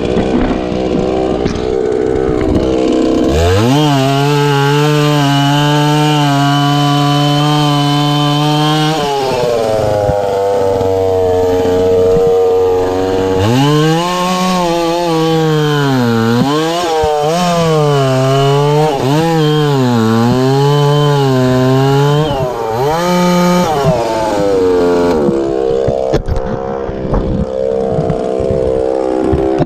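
Chainsaw revving to full throttle and cutting wood, its high engine note dipping and recovering again and again as the chain bogs in the cut. It then drops back to a rough idle near the end.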